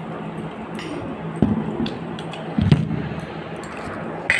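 Handling noise from a phone camera being picked up and moved: two dull thumps, the second louder, and a few small clicks over a low steady hum of room noise.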